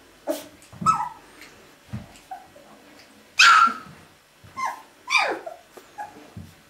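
Two-and-a-half-week-old Drentsche Patrijshond puppies giving a string of short, high yips and squeals, several falling in pitch. The loudest yelp comes about three and a half seconds in.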